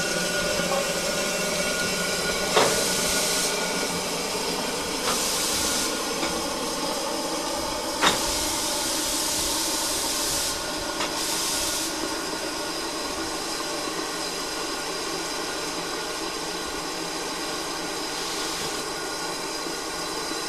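LMS Ivatt Class 2MT 2-6-0 steam locomotive standing at the platform, simmering with a steady hiss of steam. Several louder spells of hissing come and go, and there are two sharp knocks, about two and a half and eight seconds in.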